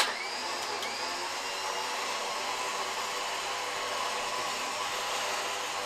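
OPENROAD 13,000 lb electric winch running on its remote, the series-wound motor and planetary gears whirring steadily as the drum reels in synthetic line. It kicks in abruptly.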